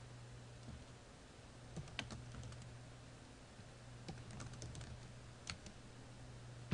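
Computer keyboard typing: faint, scattered key clicks, a few about two seconds in and a quicker run in the second half, over a steady low hum.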